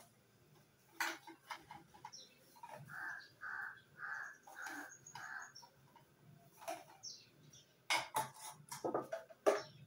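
A crow cawing about five times in a quick, even series a few seconds in. Sharp knocks and clatter about a second in and again near the end.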